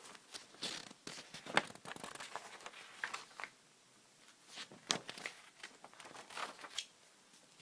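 Paper pages in a three-ring binder being flipped and handled, with irregular rustling swishes and soft clicks, and two short quiet pauses.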